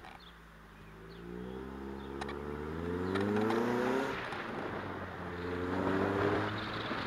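Mazda MX-5 engine accelerating, rising in pitch, with a gear change about four seconds in and a second climb after it. Wind noise on the microphone grows as the car picks up speed.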